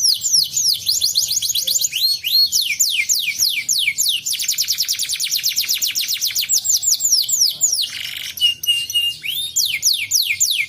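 Domestic canary singing a long, fast trill of repeated downward-sweeping whistled notes, about ten a second. About eight seconds in, the trill breaks briefly for a short buzzy note and a few level pips, then resumes.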